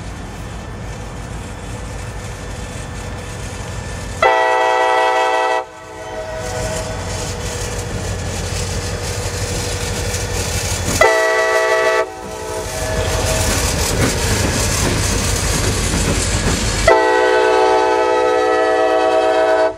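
CSX diesel locomotives running light engine, the lead unit sounding its multi-note air horn three times: a blast of about a second and a half about four seconds in, a shorter one around the middle, and a longer one near the end that cuts off abruptly. Between blasts there is a steady low rumble from the passing locomotives.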